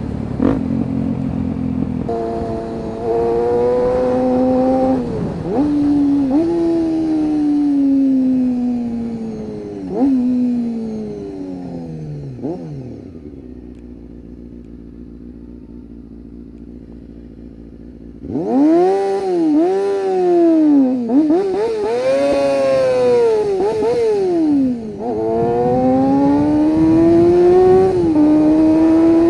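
Motorcycle engine accelerating hard through the gears, the pitch climbing and dropping at each upshift, then fading to a low, distant drone. About eighteen seconds in it cuts abruptly to a loud engine revved up and down in quick blips several times, before it accelerates again with another upshift near the end.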